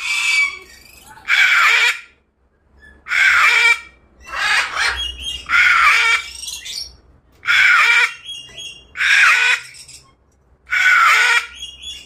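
Sulphur-crested cockatoo screeching: about eight harsh squawks, each under a second long, repeated every second or so.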